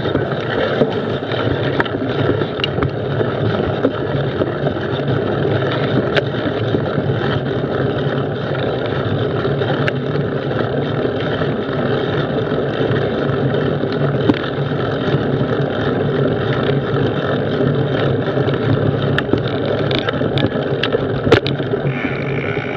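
Steady riding noise from a mountain bike climbing a dirt trail, picked up by a camera mounted on the bike: tyre and wind rumble on the microphone, with scattered small clicks and knocks from the bike and trail, a few louder ones near the end.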